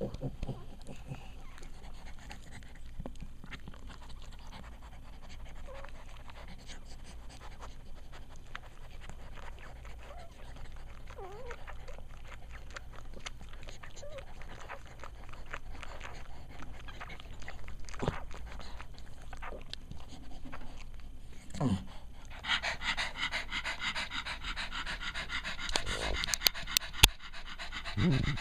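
Cavalier King Charles Spaniel mother dog panting rapidly and steadily, growing louder for the last several seconds, with a few sharp bumps near the end. The panting is the normal heavy breathing of a bitch one day after whelping, while her newborn puppies nurse.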